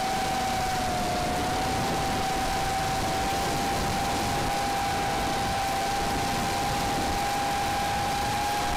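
A 250-size FPV racing quadcopter's brushless motors and propellers whining at a nearly steady pitch over a rush of wind noise, heard from the camera on board. The propellers are badly shredded.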